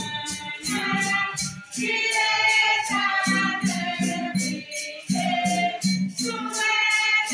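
A choir singing a hymn together, with a shaker or maraca keeping a steady beat of about three strokes a second.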